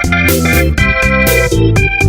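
Background music: loud, steady-beat instrumental track with keyboard and guitar notes.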